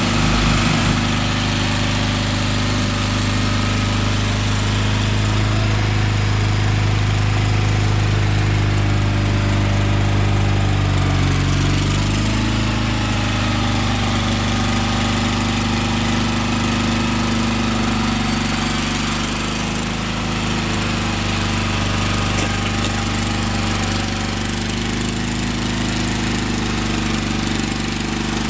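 Gravely 20-G Pro garden tractor engine running steadily, its pitch shifting briefly about ten to twelve seconds in.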